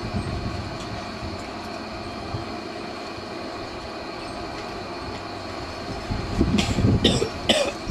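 Shortwave radio receiver hissing with static between stations, steady faint tones running through the noise. Near the end, louder irregular rumbles and a few sharp clicks come in.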